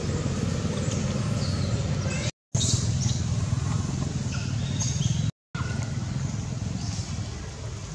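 A motor engine running steadily, a low even hum, with a few faint high chirps over it. The sound drops out completely twice, briefly.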